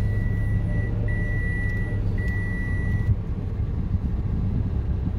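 Small car driving slowly, heard from inside the cabin: a steady low rumble of engine and tyres. A steady high-pitched tone sounds over it in three roughly one-second stretches with short breaks, stopping about three seconds in.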